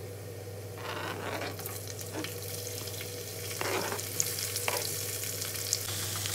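Chopped red onions scraped off a cutting board with a knife into hot oil in a pressure cooker, sizzling as they land, then stirred with a wooden spoon. The sizzle builds after about the first second, with a few scrapes and knocks of knife and spoon against the pot.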